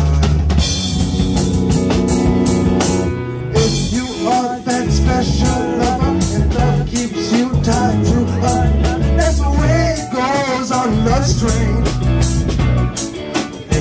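Live rock band playing a song: electric guitar, bass guitar, drum kit and keyboard, with steady drum hits and a melodic line bending up and down in pitch from about four seconds in to about eleven.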